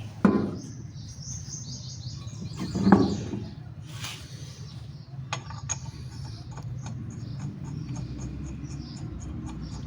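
Two sharp knocks about two and a half seconds apart over a steady low hum, with high chirps and, later, a run of faint, evenly spaced high ticks.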